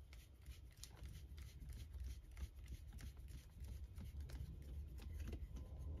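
Small, faint clicks and ticks of a screwdriver turning a tiny T5 Torx screw into a laptop's SSD mounting, over a low steady hum.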